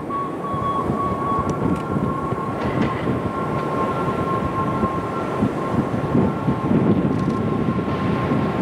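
A 1917 Lo-V subway train approaching on an elevated track: a steady rumble of wheels on rails with a high steady tone over it, joined by a second high tone about a second and a half in.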